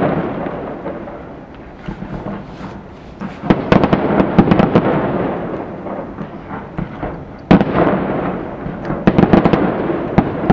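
Aerial fireworks display: shells bursting with bangs and quick clusters of crackling, one very loud bang about three quarters of the way in.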